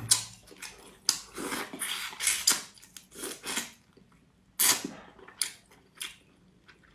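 Close-up mouth sounds of a person eating spicy crayfish tails: wet sucking and chewing in short, irregular bursts with brief pauses between them.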